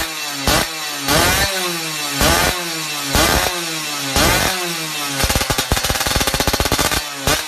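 Yamaha F1ZR two-stroke underbone engine through an AHM Malaysia racing exhaust, being revved in quick throttle blips about once a second, each rising and falling in pitch. For about two seconds near the end the blips give way to a fast crackling rattle, then resume.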